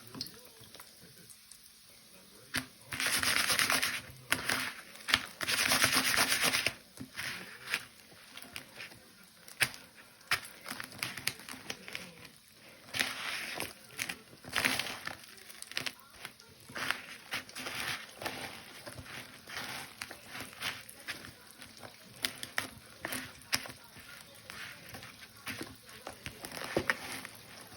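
Breaded chicken Kiev frying in hot oil in a pan: two loud bursts of sizzling about three and five seconds in, then steady crackling and popping of the oil.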